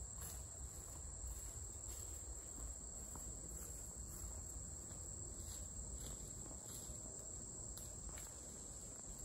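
A chorus of insects calling steadily, high-pitched and pulsing evenly, over a faint low rumble.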